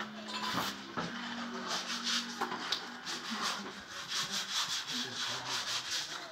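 Steel spade scraping and jabbing through wet concrete and gravel in repeated, irregular strokes, as fresh concrete is worked by hand into a foundation footing to compact it.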